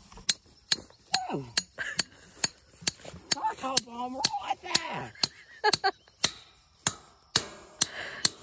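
Sharp knocks repeating evenly, a little more than two a second.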